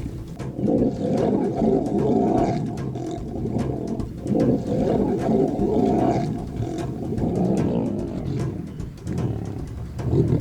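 Lions snarling and growling over a kill, several long, rough growls with short breaks between them: a real fight over the food.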